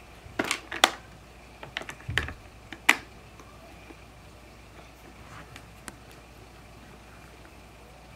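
Hard plastic toy parts clicking and clacking as figures and pieces are handled on a Fisher-Price Imaginext Batman Command Center playset: several sharp clicks in the first three seconds.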